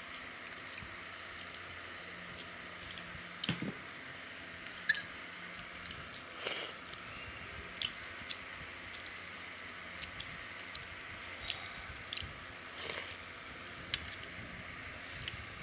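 Two people eating rice and curry with their hands from steel plates: scattered soft clicks and squelches of fingers mixing and scooping food against the metal, with chewing, over a steady faint hiss.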